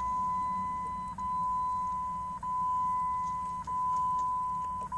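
Jeep Grand Cherokee's dashboard warning chime sounding with the ignition switched on and the engine not yet running: one steady high beep, broken by a short gap about every second and a quarter.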